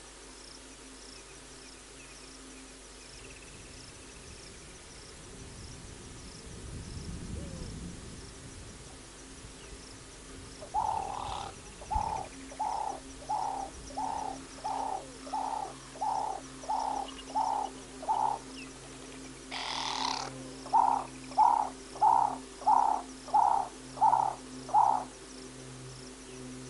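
A bird calling a long series of evenly spaced hoot-like notes, about eleven from halfway in, then after a short harsh burst, seven louder ones. Faint even insect ticking runs underneath.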